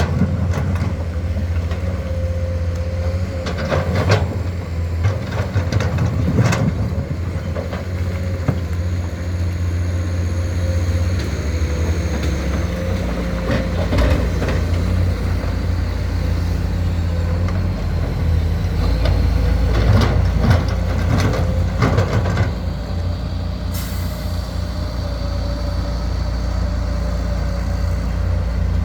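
Komatsu excavator's diesel engine running steadily with a heavy truck idling alongside, while loud clanks and bangs come every few seconds, several of them in the first few seconds and another cluster about two-thirds of the way through.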